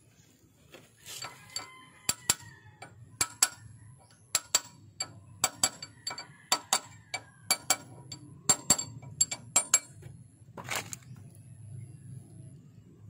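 Steel hand tool striking and clinking against metal engine parts: about twenty sharp, irregular metallic knocks with a short ring, clustered between about two and ten seconds in, over a faint low hum.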